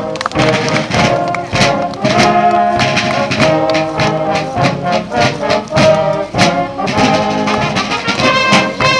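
A brass band playing, trumpets and trombones over a steady drum beat.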